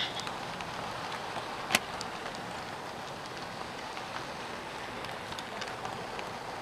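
Model railway passenger cars rolling along the track: a steady rushing wheel noise with scattered small clicks, and one sharp click about two seconds in.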